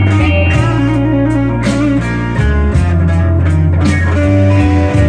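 Slow blues playing between sung lines: an electric guitar fill with wavering, bent notes over a steady, sustained bass.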